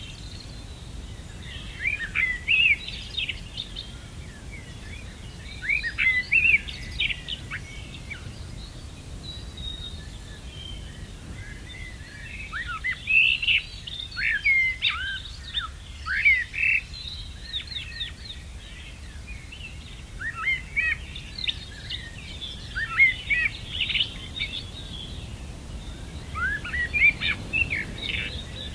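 Songbirds singing: phrases of quick, sliding chirps that come in bunches a few seconds long with short pauses between, over a steady faint low background rumble.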